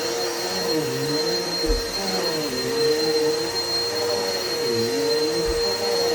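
Vacuum cleaner running steadily with a constant whine. A lower tone dips and rises about every second and a half as the motor's load changes.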